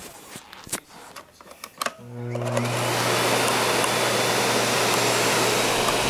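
Miele S6 canister vacuum cleaner switched on about two seconds in, its motor spinning up over about a second into a steady hum with a rush of air. A few light handling knocks come before it starts.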